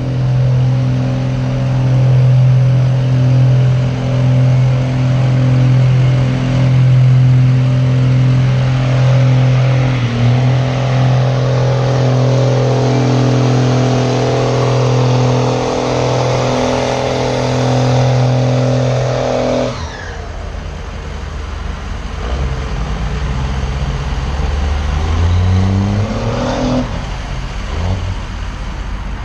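Engine held at steady high revs through a tyre-smoking burnout, with a loud hiss over it. About twenty seconds in it cuts off abruptly, and a few seconds later an engine revs up in rising sweeps.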